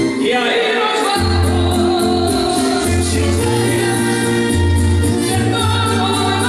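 A man singing a Latin pop song into a microphone over instrumental accompaniment with a steady bass line. The bass drops out for about a second near the start, then comes back in.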